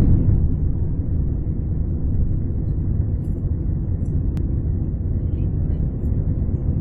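Airplane cabin noise during takeoff: the steady low rumble of the engines and rushing air as the plane lifts off and climbs, a little louder in the first second.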